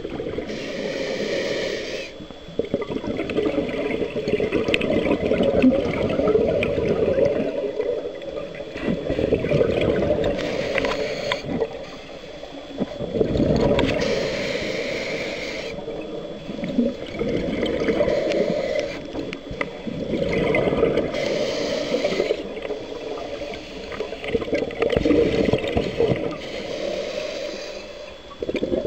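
Scuba breathing through a regulator heard underwater: a short hiss on each inhalation every several seconds, with a bubbling gurgle of exhaled air in between.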